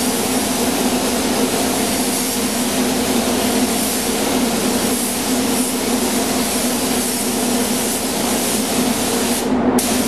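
DeVilbiss GTi gravity-feed paint spray gun spraying solvent metallic basecoat: a steady hiss of atomising air over a steady low hum. The hiss drops out for a moment near the end.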